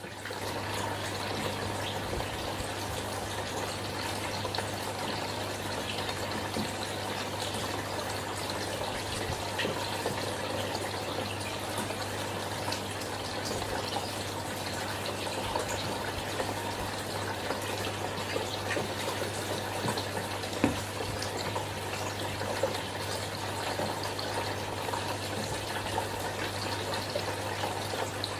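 Aquarium filter running in a turtle tank: a steady rush of falling water over a constant low hum from the pump motor. One sharp tap about two-thirds of the way through.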